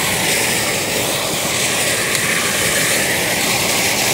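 Steady, unbroken rush of running water from a stream, loud and even throughout.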